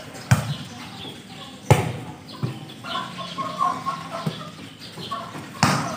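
A volleyball being struck by hands and forearms during a rally: several sharp slaps one to two seconds apart, with faint short calls in between.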